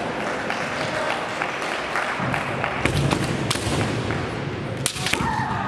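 Kendo bout in a gymnasium: sharp cracks of bamboo shinai strikes and stamping feet among shouted kiai, with spectators clapping; a loud crack about five seconds in is followed by a shout.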